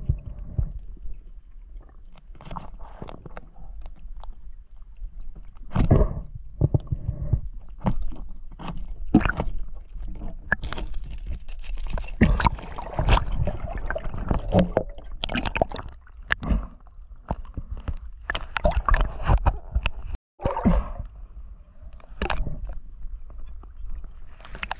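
Water sloshing and gurgling around a spearfisher's camera, with irregular knocks and clicks from handling the spear, stringer and a speared fish. The sound cuts out briefly about twenty seconds in.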